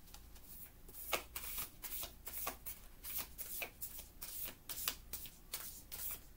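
A deck of oracle cards being shuffled by hand, overhand: a steady run of soft card slaps and flutters, about three a second.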